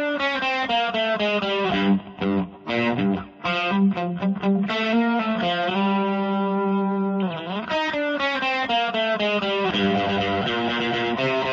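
Electric guitar music played through effects with some distortion: long held notes, a pitch slide about seven seconds in, and a stretch of short choppy notes from about two seconds in.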